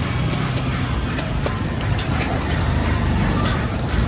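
Steady low rumble of road traffic, with scattered sharp clicks and taps through it.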